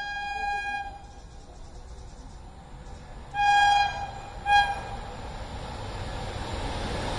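An approaching train sounding its horn: a held note fading out about a second in, then a longer blast at about three and a half seconds and a short blast a second later. The rumble of the oncoming train grows steadily louder toward the end.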